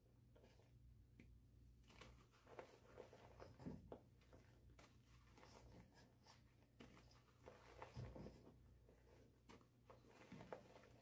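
Hands crushing and kneading reformed gym chalk and baking soda chunks in a powdery mix in a metal bowl: faint, irregular crunching and crumbling with soft scraping, and a few slightly louder crunches.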